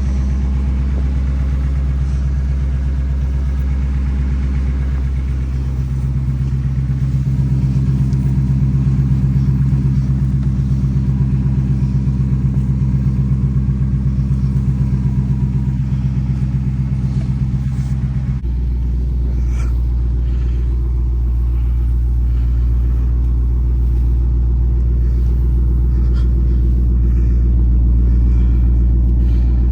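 Dodge R/T's engine idling steadily after a cold start. About eighteen seconds in, the idle drops to a lower, deeper note as the cold fast idle settles. Faint scrapes and taps come through as snow is wiped off the car.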